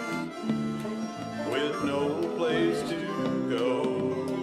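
Country-style instrumental break: acoustic guitar strumming chords under a lead line that slides up in pitch three times, about a second apart.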